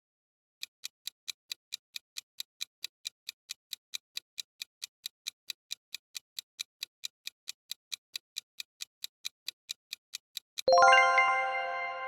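Countdown timer sound effect: steady clock-like ticks, about four a second, then near the end a bright bell chime that rings out and slowly fades.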